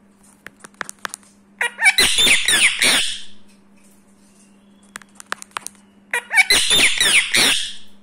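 Indian ringneck parrot giving two loud bouts of harsh screeching squawks, each about a second and a half long and some four seconds apart, with quick pitch sweeps inside each bout. A few faint clicks come before each bout.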